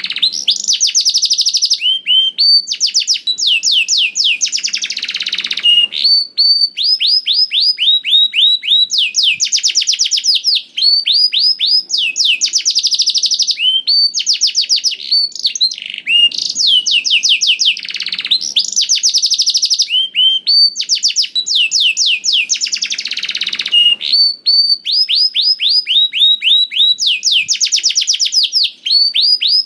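Canary singing continuously: a long, loud song of fast trills and rolls, each phrase a rapid run of repeated high notes, following one after another with only brief breaks.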